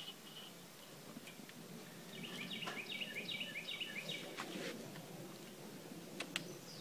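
A songbird gives a quick run of about seven repeated chirps, starting about two seconds in, over faint steady outdoor background noise. A few faint clicks follow later.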